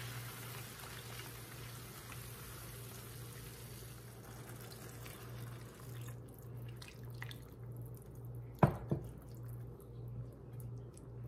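Water poured from a measuring cup into a hot pan of diced vegetables and tomatoes; the sizzling hiss stops suddenly as the water goes in about halfway through. A sharp double knock follows about two-thirds of the way in, over a steady low hum.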